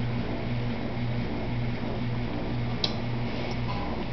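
Steady low hum with an even hiss, and one short sharp click about three seconds in.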